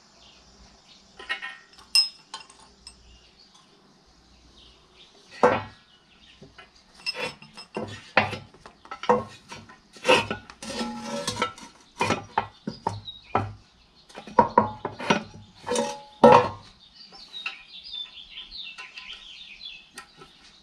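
Metal tools and parts clinking and knocking in an irregular series of sharp strikes, while a flexible fuel line is cut and fitted with hose clamps.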